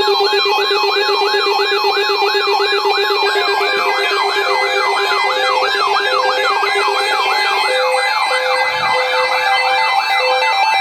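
Electronic alert siren sweeping rapidly up and down, about three times a second, layered with a steady lower tone that stops near the end and a tone beeping on and off through the second half.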